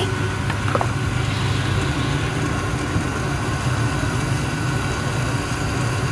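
Steady low mechanical hum, like an engine or generator running without change, with a brief high squeak just under a second in.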